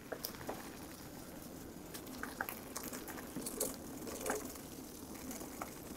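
Riese & Müller Superdelite Mountain e-bike's tyres rolling over a leaf-covered dirt trail: a steady rolling noise with scattered small crackles and ticks.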